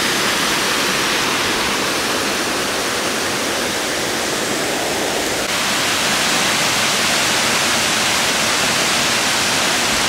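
Waterfall rushing steadily down stepped rock ledges, a constant loud roar of falling water, shifting slightly in tone about halfway through.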